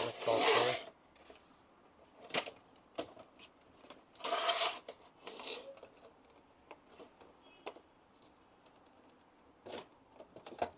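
Plastic printer housing being handled and pried apart: short scraping rubs of plastic on plastic, one at the start and one about four seconds in, and scattered sharp clicks of snap-fit hooks and parts knocking.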